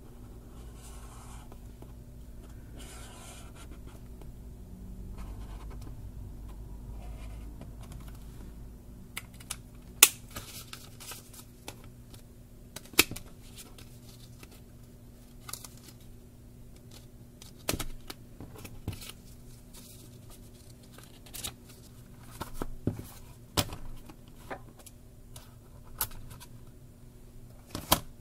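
Soft scratching of a felt-tip highlighter across a paper notebook page for the first several seconds, then a scattered series of sharp taps and clicks as a spiral notebook, sticky notes and paper cards are handled and set down on a wooden desk. The loudest tap is about ten seconds in.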